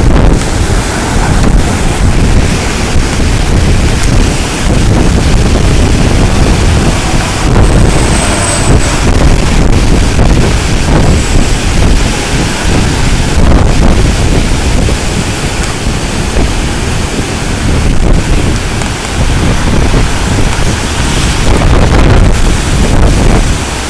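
Hurricane-force wind buffeting the microphone with a heavy low rumble that swells and eases in gusts, over the roar of storm surf breaking on the beach.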